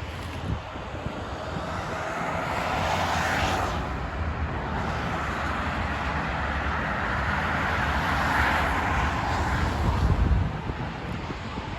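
Rushing noise of a passing motor vehicle, swelling twice and fading, over a low rumble.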